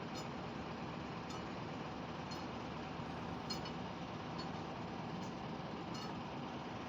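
Light metallic clinks, roughly once a second, over a steady mechanical noise.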